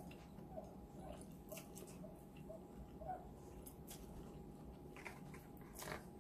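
Faint slurping and chewing of sotanghon glass noodles eaten with chopsticks: soft wet mouth sounds, with a slightly louder slurp near the end.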